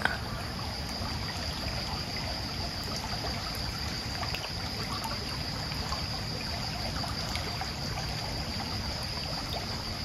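Shallow stream running and trickling over a bed of pebbles and stones, a steady flow.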